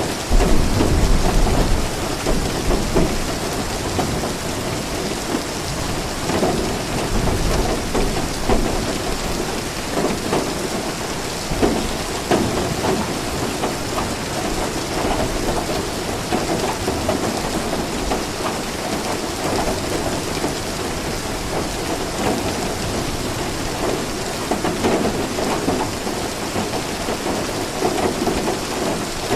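Steady rain falling, with a low rumble of thunder in the first couple of seconds.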